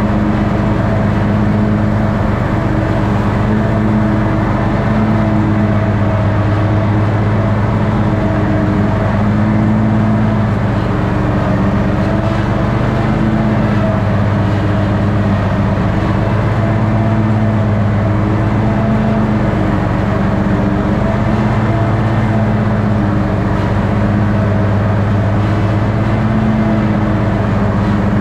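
Toro ride-on lawn mower's engine running steadily while mowing grass, a loud, even hum whose pitch wavers slightly.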